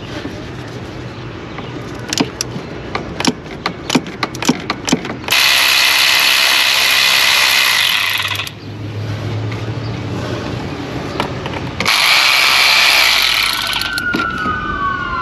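A run of sharp clicks and knocks, then two bursts of about three seconds each of a cordless power tool running as it backs out the thermostat housing bolts.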